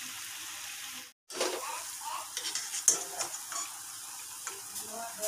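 Banana fritters (kol pitha) deep-frying in hot oil in a metal kadai, sizzling steadily. The sound drops out for a moment about a second in. Then a spatula scrapes and clinks against the pan over the sizzle as the fritters are turned.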